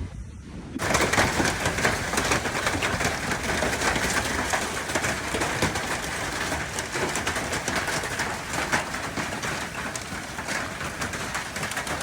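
Heavy rain and hail coming down hard: a steady dense hiss full of many sharp little impacts, starting suddenly about a second in.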